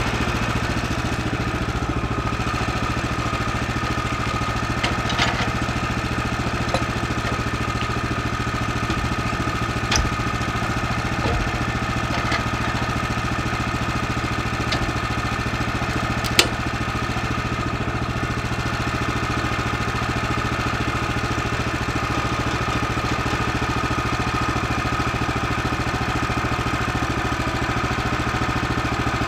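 Woodland Mills HM126 portable bandsaw mill running steadily at speed, its small gas engine driving the band blade through a cedar cant, with a few light ticks along the way.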